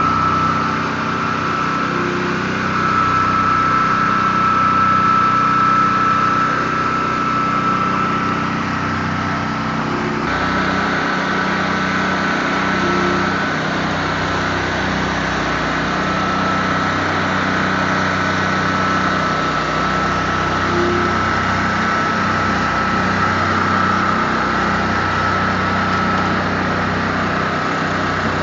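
Pressure-washing rig running steadily while a rotary surface cleaner with vacuum recovery is pushed over concrete: engine and pump drone with a steady high whine. The sound changes slightly about ten seconds in.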